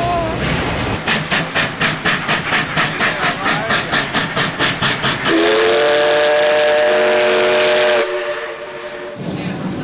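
Steam locomotive working hard with rapid exhaust chuffs, about four a second. About five seconds in, its whistle sounds a chord of several notes for a couple of seconds and then cuts off.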